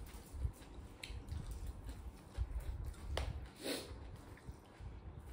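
Close-miked eating sounds: chewing and squishing of food eaten by hand, with a few short sharp mouth noises about a second in and twice around three seconds in, over irregular low thuds.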